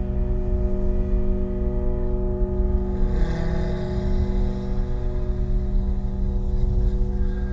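Ambient drone music: sustained low tones over a deep rumble, swelling briefly about three seconds in.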